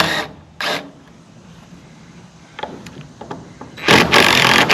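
Cordless impact driver driving a fastener into a new 2x12 header board: a short burst shortly after the start, a few light knocks, then a loud hammering run of about a second and a half near the end as it drives the fastener home.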